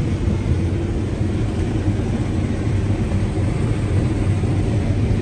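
Combine harvester running steadily while picking corn, a continuous low rumble.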